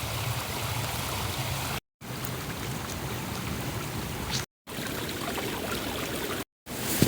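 Small mountain stream running steadily, a rushing water noise broken by three short gaps of total silence.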